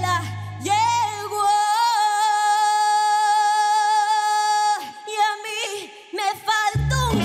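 A young woman singing solo into a microphone. The low backing music drops out about a second and a half in, leaving her voice alone on one long held note of about three seconds, followed by a few shorter sung phrases. The backing comes back in near the end.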